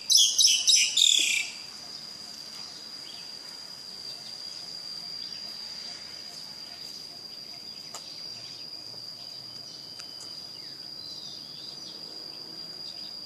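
A bird calling in loud, rapid, high-pitched chirps, about five a second, which stop about a second and a half in. After them comes a steady high insect trill with faint scattered bird calls.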